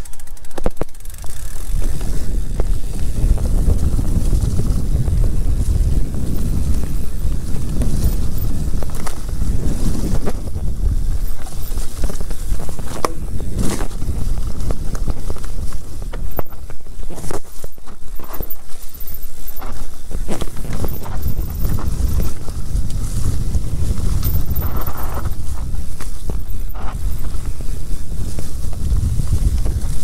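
Electric mountain bike descending a dirt forest trail: tyres rumbling over the ground and wind buffeting the microphone, with frequent short clicks and rattles from the bike over bumps.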